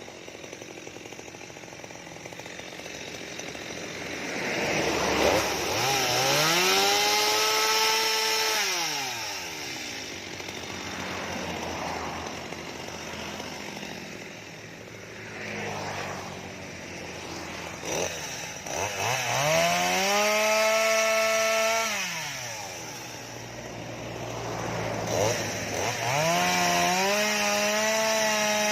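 Stihl MS 230 two-stroke chainsaw revving up to full throttle three times, each burst held for two or three seconds before dropping back to idle, cutting into mango wood.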